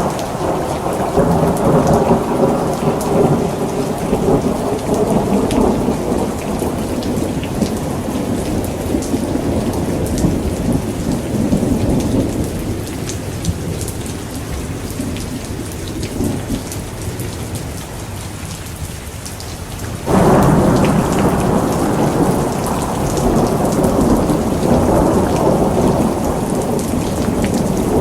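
Thunderstorm: steady heavy rain, with a long roll of thunder that slowly dies away, then a new thunder rumble breaking in suddenly about two-thirds of the way through.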